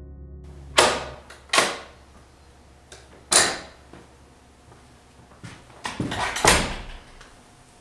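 A series of sharp knocks and clatters in a small room: three separate hits in the first few seconds, then a quicker cluster of them around six seconds in.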